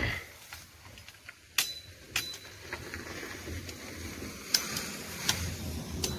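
A few sharp snaps and cracks of a green cane stalk being broken and stripped by hand, with leaves and brush rustling from about halfway.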